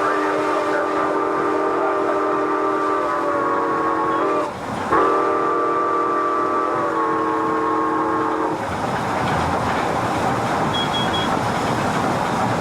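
Milwaukee Road 261's steam whistle sounding two long blasts, the first cut off about four seconds in and the second following after a brief gap, each sagging slightly in pitch as it ends. After that comes a steady rushing noise of the steam locomotive running on the rails.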